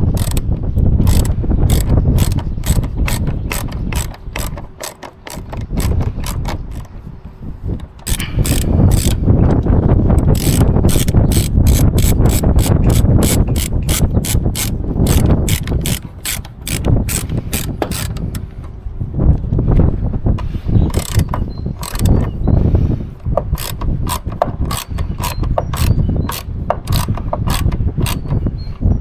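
Hand ratchet wrench clicking in runs of quick, evenly spaced strokes as bolts are tightened, pausing now and then.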